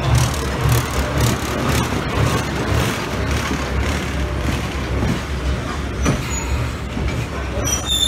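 Botchan train replica locomotive's diesel engine running with a steady, pulsing low rumble. A brief high squeal comes near the end.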